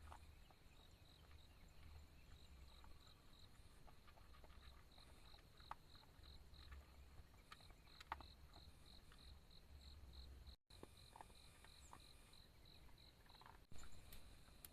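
Faint, near-silent ambience: an insect, cricket-like, chirping in an even high pulse about three times a second. A few small clicks and knocks can be heard over it, and the sound drops out abruptly about two-thirds of the way through.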